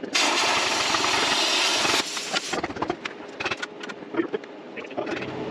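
Plasma cutter blowing a loud, steady hiss for about two seconds, then shutting off abruptly. Scattered clicks and knocks follow as the man shifts on the steel mill frame.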